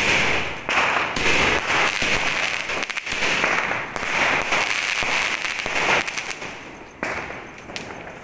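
A 120-shot aerial firework cake fires shell after shell, about one every second, with hissing and crackling sparks between the reports. The barrage dies down about six seconds in, followed by one last sharp crack.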